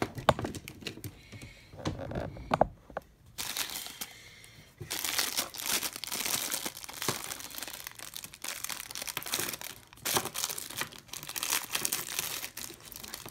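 Clear plastic toy bag crinkling and rustling as it is handled and opened, with a few clicks and knocks in the first few seconds and dense crackling for most of the rest.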